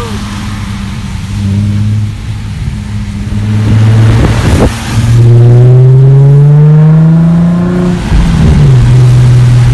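Infiniti G35's 3.5-litre V6 exhaust with the muffler and resonators deleted, heard from inside the cabin: it runs steadily, then grows louder and rises in pitch for about three seconds under acceleration. Near the end the pitch drops suddenly, as at an upshift, and settles back to a steady drone. There is a brief knock about halfway.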